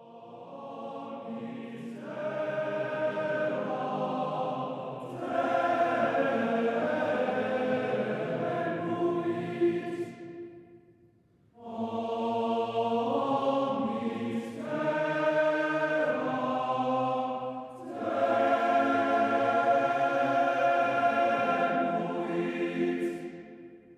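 Choral music with slow, sustained sung chords in two long phrases, separated by a brief pause a little before halfway, fading out near the end.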